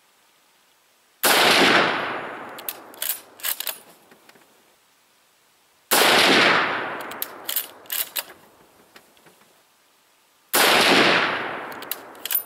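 Three rifle shots from a Mosin-Nagant 91/30 in 7.62x54R, about four and a half seconds apart, each boom trailing off over a couple of seconds. After each shot come a few sharp clicks as the bolt is worked to chamber the next round.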